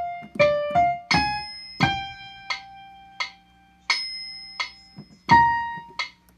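Piano playing the closing bars of a flute part as a single-note melody: a run of short notes, one note held for about two seconds, then a few last notes that stop about six seconds in.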